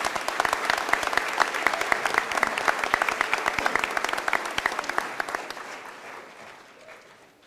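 Audience applauding, the clapping dying away over the last couple of seconds.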